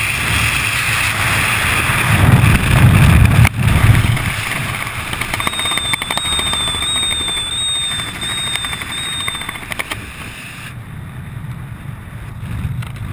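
Wind rushing over a skydiver's helmet-mounted camera during the descent, a heavy rumbling rush that is loudest a few seconds in. A faint wavering high tone sounds for several seconds midway. About eleven seconds in, the hiss thins out and a lower rumble remains.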